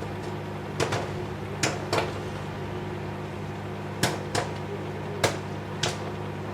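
Popcorn popping inside a running Whirlpool microwave oven: about seven sharp, scattered pops, up to two seconds apart, over the oven's steady hum.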